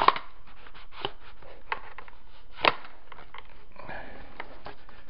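Parts of a G&G F2000 airsoft rifle clicking and knocking as it is taken apart by hand, with a sharp knock at the start and another louder one about two and a half seconds in, and a short rustle of handling near the end.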